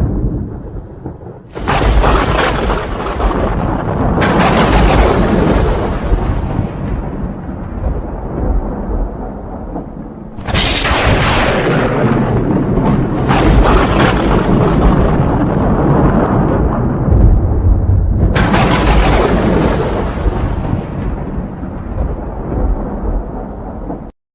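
Thunder: five sudden claps, each breaking sharply and rolling off into a long low rumble. The sound cuts off abruptly near the end.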